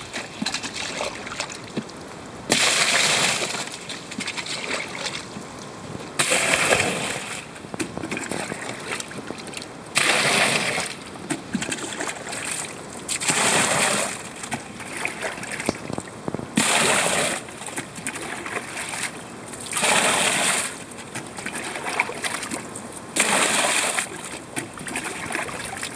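Pond water poured from a plastic bucket into a plastic box, splashing in about seven pours of roughly a second each, every three to four seconds. Between the pours there is quieter sloshing as the bucket is dipped back into the pond.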